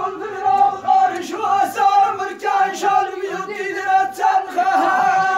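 Men chanting a sung poem together in a high, sustained line, with sharp percussive hits cutting in every second or so. Near the end the voices settle on one long held note.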